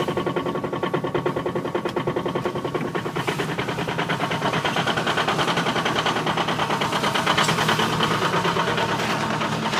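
Chrysler Voyager's diesel engine idling just after a frosty cold start, with a loud, fast, even diesel clatter; it gets a little louder about four seconds in.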